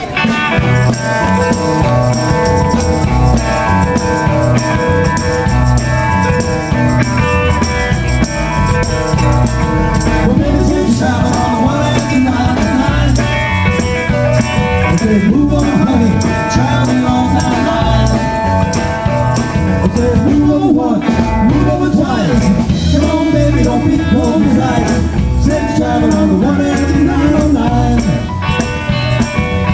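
A live blues-rock band with electric guitars and drums starting up at full volume, playing an up-tempo shuffle. A man's lead vocal comes in partway through.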